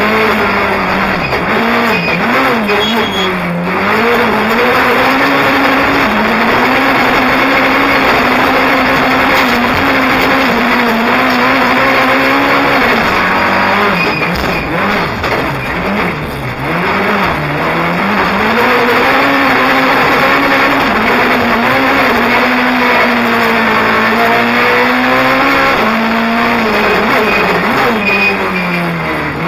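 Rally car engine heard from inside the cabin, driven hard: the revs stay high, then drop sharply and climb back three times as the car slows and accelerates again.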